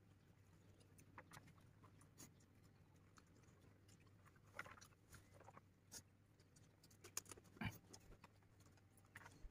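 Near silence with faint scattered clicks and rustles of people eating with their hands from a shared spread on the ground, and a couple of louder short knocks about three quarters of the way in.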